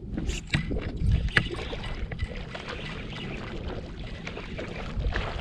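Water splashing and sloshing against a kayak, with a few sharp knocks in the first second and a half.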